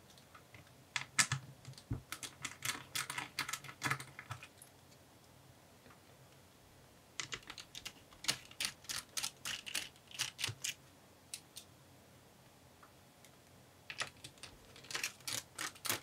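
Small Phillips screwdriver backing out the screws that hold in a laptop battery: runs of quick, light clicks, in three bursts with pauses between.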